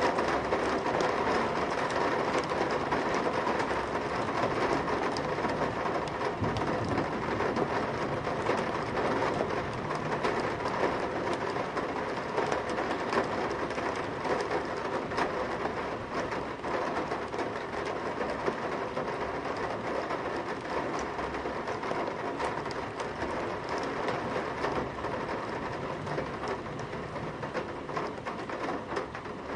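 Heavy rain drumming on a metal window sill, heard from inside: a dense, continuous patter with many sharp individual drop ticks, easing slightly toward the end.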